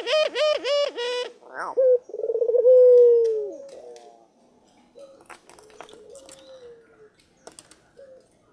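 A bird calling: a quick run of about six short notes, then a long, low, cooing note that falls in pitch at its end, followed by softer, similar calls.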